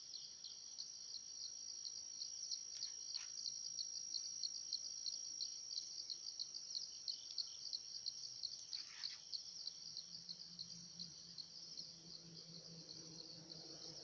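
Forest insects chirping in a steady, fast-pulsing high chorus, with a few short falling bird calls. A faint low hum comes in during the second half.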